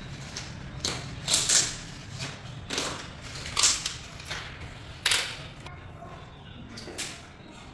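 Floor-tile laying work: a string of about seven sharp knocks and scrapes at uneven intervals, thinning out near the end.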